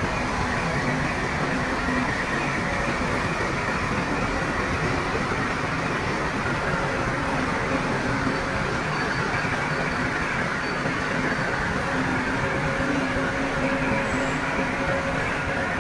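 Shantui bulldozer's diesel engine running steadily, with a continuous mechanical rumble and no pauses.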